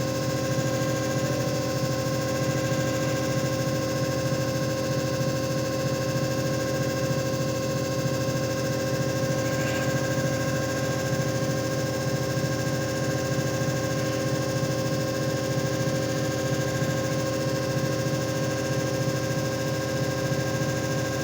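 JFJ Easy Pro disc repair machine running: a steady motor hum with several constant tones and a fast, even rattle underneath.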